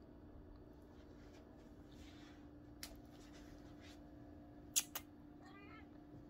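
Quiet room with a steady low hum, broken by faint scratching and a few sharp clicks, two close together about five seconds in, from a kitten's claws snagging the carpeted bowl of a cat tree as it paws and squirms on its back.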